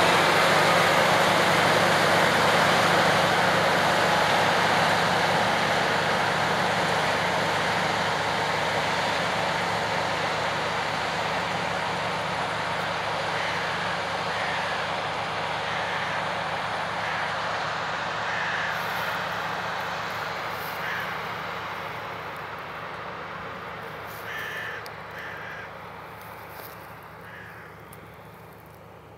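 New Holland TC56 combine harvester running while it harvests wheat, a steady engine and threshing din that fades gradually as the machine moves away. Crows caw a number of times in the second half as the machine noise dies down.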